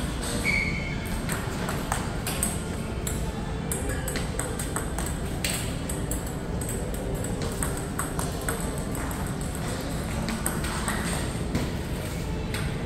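Table tennis ball being struck back and forth in a rally: a quick, irregular run of light clicks as it hits the rackets and bounces on the table, several a second, over a steady hall hum.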